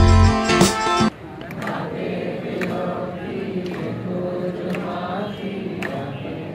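Background music with a beat cuts off suddenly about a second in. A live open-air performance takes over: singing accompanied by an acoustic guitar, heard from among the audience.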